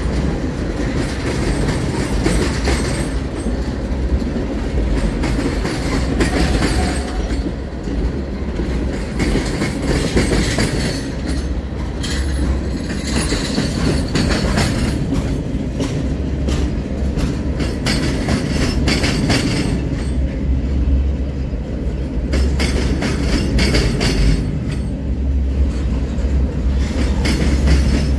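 Freight train of tank cars and covered hopper cars rolling past close by: a steady deep rumble of wheels on rail, with frequent clicks and clacks as the wheels cross rail joints.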